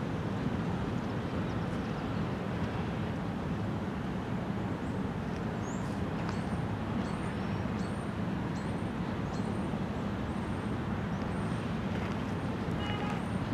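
Freight train cars rolling past: a steady low rumble of wheels on rail, with faint high squeaks repeating about once a second in the second half.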